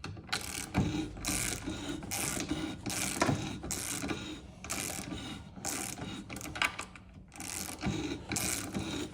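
Long-handled 3/8 ratchet turning a hand cutting tool around a 5.0 Jaguar Land Rover supercharger snout: repeated strokes of metal being cut, roughly one a second, with the ratchet's pawl clicking between them.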